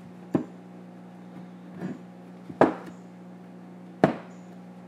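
Stacked steel bar pieces handled with gloved hands and knocked against a workbench: four sharp knocks, the last two the loudest, over a steady low hum.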